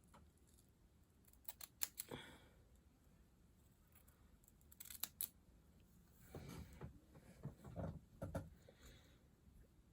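Scissors snipping: a few quick clicking snips about two seconds in and again around five seconds in, followed by softer handling noise.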